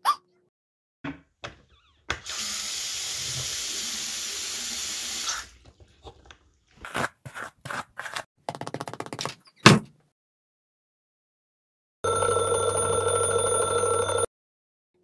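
Cartoon sound effects in sequence. A few small clicks, then water running for about three seconds, then a string of quick hairbrush strokes and a single loud thump. Near the end a digital alarm clock rings for about two seconds.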